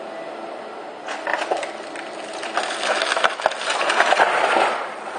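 Wooden shed torn down by an excavator's demolition grab: timber cracking and splintering and roofing sheets clattering as the structure collapses. The cracking builds from about a second in, is loudest in its last couple of seconds, and stops shortly before the end, over a steady background noise.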